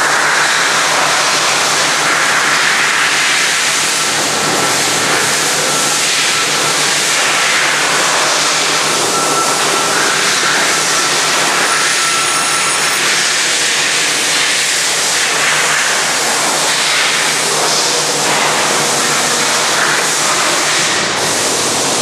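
Forrest Model 480P high-speed horizontal bandsaw running, its 1-inch scallop-edge knife blade cutting slowly through a high-density mineral fiber insulation block as the table is pushed through. The sound is a steady, loud hiss over a low hum.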